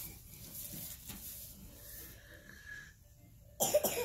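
Quiet room with faint breathing-like sounds. About three and a half seconds in there is a short, loud burst of rustling and clicks with a brief vocal sound.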